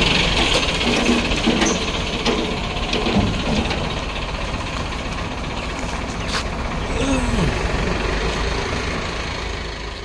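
Mahindra tractor's diesel engine running steadily while its hydraulic tipping trailer is lowered after dumping a load of soil.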